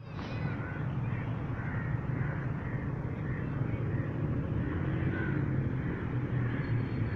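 Outdoor park ambience: a steady low rumble with birds calling over it, short calls repeating every half second to a second.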